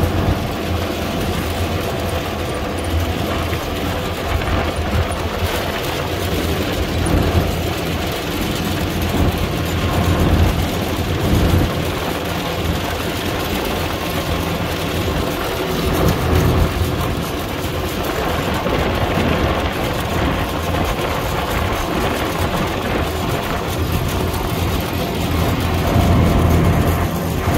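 International Harvester 321 combine harvester running as it drives along a dirt track: a steady engine-and-machinery drone heard from the driving seat.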